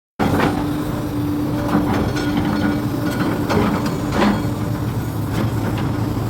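Hyundai excavator's diesel engine running steadily under load while its grapple works, with irregular sharp knocks and clanks, about half a dozen of them, as the grapple handles material.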